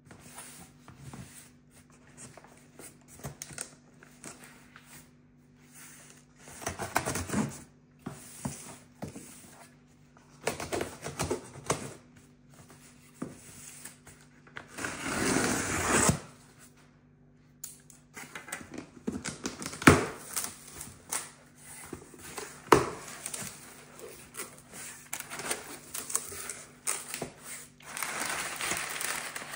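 A cardboard shipping box being opened by hand: packing tape is slit and torn in several long scraping strokes, and the flaps are handled with a few sharp clicks and knocks. Near the end, crumpled kraft packing paper inside the box rustles as it is pulled about.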